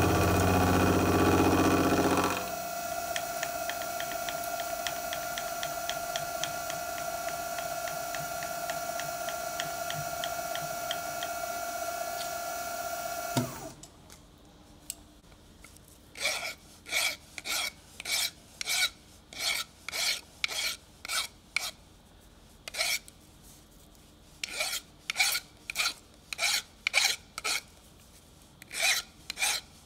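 A CTV36 milling and drilling machine runs, louder for the first two seconds, then a steady whine until it shuts off about 13 seconds in. After a short pause come short rasping strokes on metal, about two a second: hand filing of the milled workpiece.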